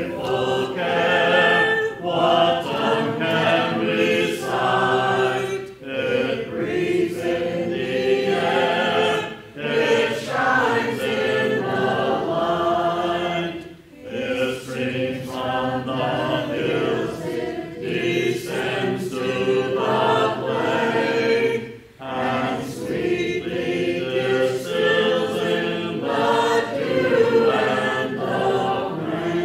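A church congregation singing a hymn a cappella, with no instruments, in phrases broken by short pauses for breath.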